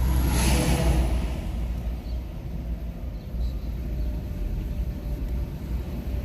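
Steady low road rumble and tyre noise of a Nissan Leaf electric car driving, with no engine sound. A brief louder rush swells and fades in the first second.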